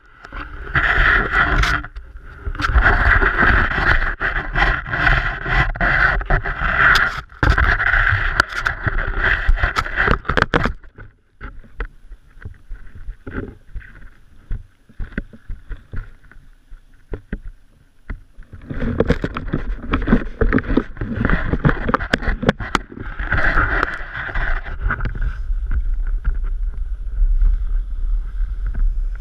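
Rough rubbing and wind noise on an action camera's microphone mounted on a selfie pole, with scattered clicks and knocks. It is loud for the first ten seconds or so, drops to quieter clicks and scrapes, and comes back loud from about nineteen seconds in.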